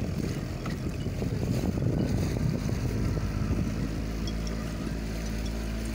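Motorboat engine running steadily under way, with the rush of water along the hull. The engine hum grows clearer about halfway through.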